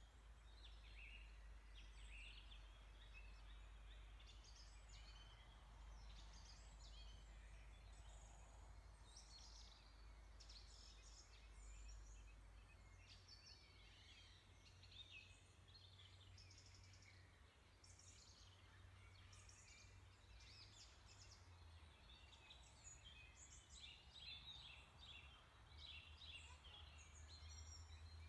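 Near silence, with faint, short bird chirps scattered throughout over a low steady hum.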